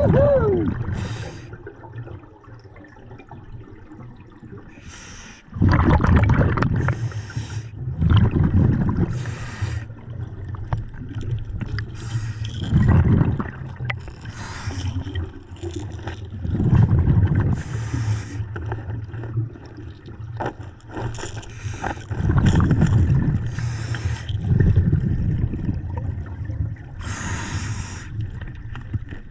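Scuba diver breathing through a regulator underwater: hissing breaths and gurgling exhaled bubbles, repeating every few seconds.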